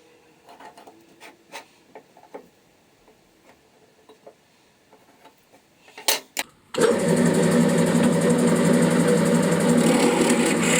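A few light knocks and clicks of handling, then about seven seconds in an electric power tool switches on abruptly and runs steadily and loudly, with a steady hum and a hiss.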